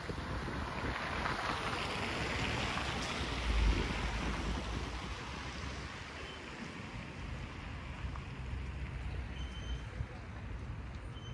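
City street noise: a vehicle passing, its tyre hiss swelling over the first couple of seconds and fading away, with wind buffeting the microphone in low rumbles, strongest a few seconds in.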